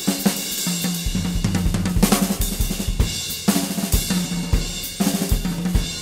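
Music with a drum kit beat: snare, cymbals and bass drum playing a steady rhythm over a changing bass line.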